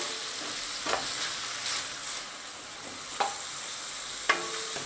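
Crumbled breakfast sausage sizzling in a nonstick skillet as it is stirred with a plastic spoon, with about four short scrapes of the spoon against the pan.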